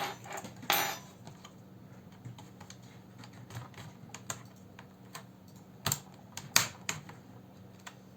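Light plastic clicks and taps from a netbook keyboard as its retaining latches are pried and snapped loose, with two sharper snaps about six and six and a half seconds in.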